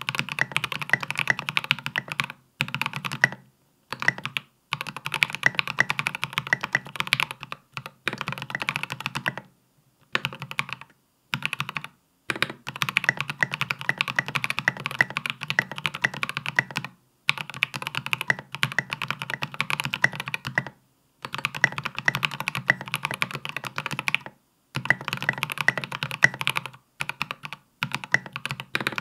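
Typing on a Space65 custom mechanical keyboard with Polaris Gray switches and SA-profile Godspeed keycaps: quick runs of keystroke clacks lasting a few seconds each, broken by short pauses.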